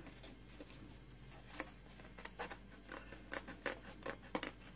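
Small craft scissors snipping through thick, stiff cardstock, finishing a circular cut that the circle cutter did not get all the way through. A series of short, sharp snips starts about a second and a half in and comes more often toward the end.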